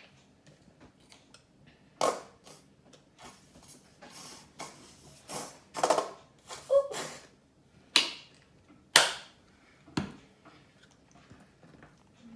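Close-up eating and food-handling noises during a fried-chicken mukbang: about a dozen sharp crunches, clicks and smacks, spaced irregularly.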